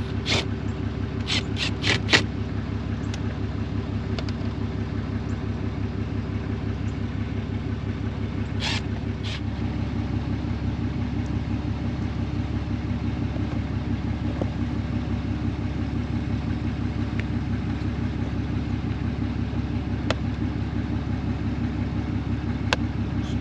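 Truck engine idling steadily with an even low pulse. A few sharp clicks sound near the start, and two more about nine seconds in.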